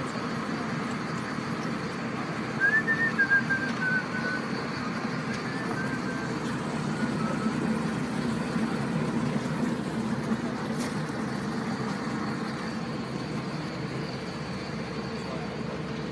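A motor running steadily throughout, with a short, thin, high call about three seconds in that drops in pitch in steps.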